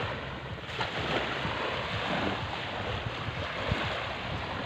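Small waves washing onto a pebbly sand beach, with wind rumbling on the microphone.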